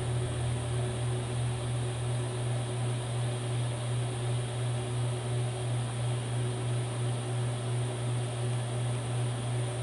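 A steady low hum with a fainter higher tone above it, swelling slightly a couple of times a second, from running shop equipment or mains-powered gear.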